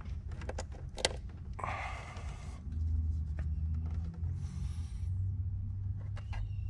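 Long needle-nose pliers and hands working a rubber hose onto a PCV fitting in an engine bay: scattered clicks and taps of metal, with a sharp click about a second in and two short rustling scrapes, over a steady low hum.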